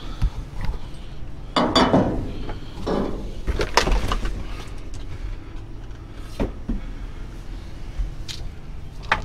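Rummaging through junk inside a metal dumpster: scattered knocks, clatters and rustling as debris is shifted and a copper pipe is pulled out, over a steady low hum.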